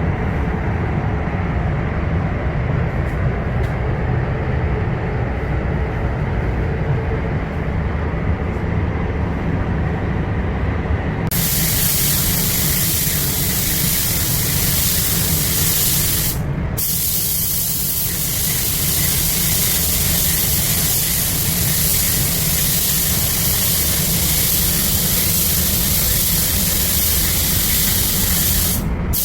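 Low steady machine rumble, then about eleven seconds in a loud steady hiss of a compressed-air paint spray gun, cutting out briefly twice.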